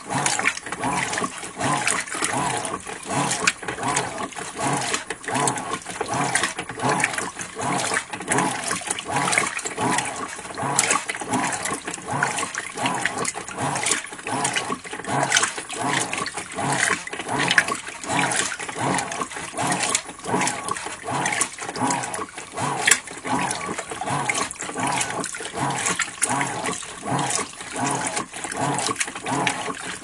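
Water sloshing and splashing rhythmically in a washing-machine tub as a hand swishes back and forth under the surface.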